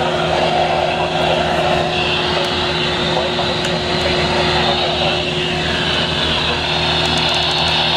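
Steady radio static with a low, even hum underneath, as from a weather radio receiver between broadcasts.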